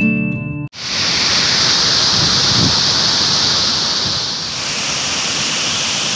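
Guitar music cuts off abruptly under a second in, giving way to the steady rushing of a low, wide waterfall pouring over its drop.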